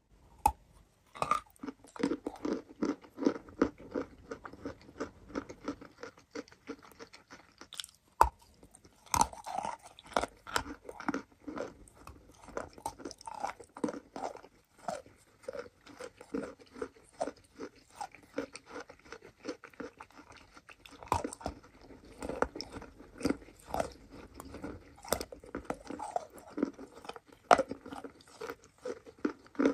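Biting and chewing of chunks of chalk coated in a thick wet paste. Sharp, irregular crunches come several a second, with a few much louder bites standing out.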